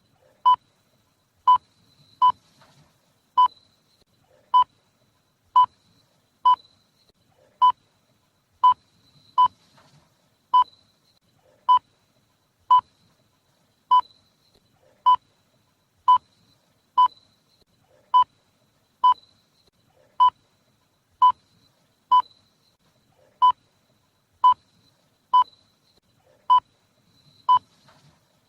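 Hospital patient monitor giving its heart-rate beep: short single-pitched beeps about once a second, in a slightly uneven rhythm.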